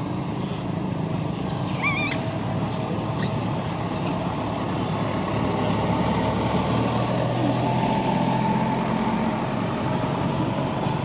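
Steady low rumble of a motor vehicle engine or nearby traffic, a little louder about halfway through. About two seconds in, one short high wavering animal call.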